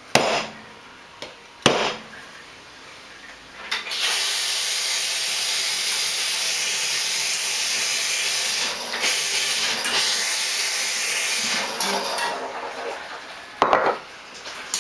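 Two sharp knocks, then a SanRemo Capri espresso machine hissing steadily for about eight seconds as steam or water jets out, and another knock near the end.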